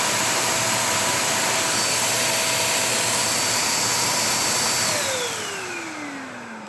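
Umoot corded handheld vacuum cleaner running at full power, a steady rush of air with a motor whine. About five seconds in it is switched off and the whine falls in pitch as the motor spins down.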